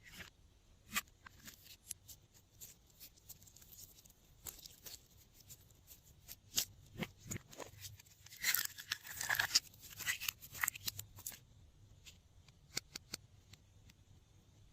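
Glossy slime being kneaded and stretched by hand, giving irregular sticky clicks and crackling pops, with a denser run of crackling a little past the middle.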